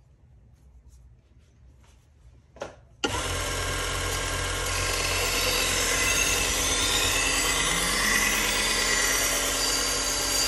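AMK-75 belt sharpener running a worn 400-grit 3M Trizact belt, with a knife blade being ground against the belt. It starts abruptly about three seconds in as a steady hum and grinding noise, after a few faint clicks.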